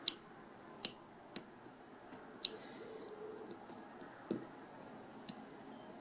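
Small sharp clicks of a hook pick lifting the pins in the cylinder of a Bell Ballistic 500 cable lock, single pin picking under tension: a handful of clicks spaced irregularly, with a duller knock about four seconds in.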